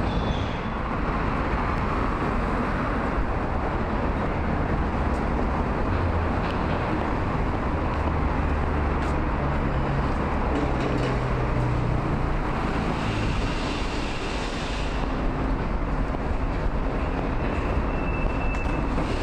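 City street traffic noise: a steady hum of passing vehicles, with a low engine drone swelling for a few seconds about the middle.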